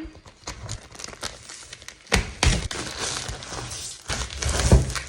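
Packaging of a cardboard advent calendar being handled and pried open: rustling, crinkling and small knocks, with a louder knock about two seconds in and another near the end.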